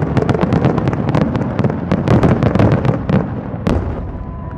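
Aerial firework shells bursting in a rapid barrage, several sharp bangs a second over a rumbling roar, thinning out after about three seconds, with one more loud bang near the end.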